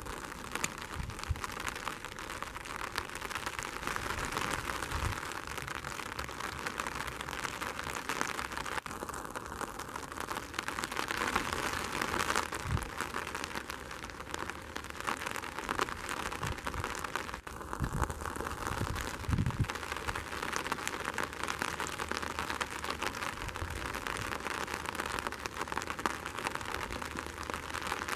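Steady rain falling, an even hiss with a few soft low thumps now and then.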